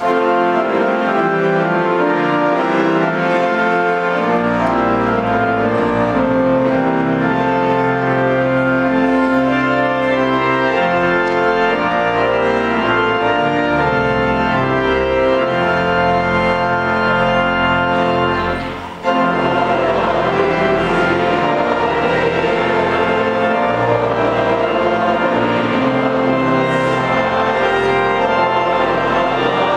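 Church organ playing a hymn introduction in sustained chords, with a deep pedal bass coming in about four seconds in. The sound dips briefly about two-thirds of the way through, then carries on.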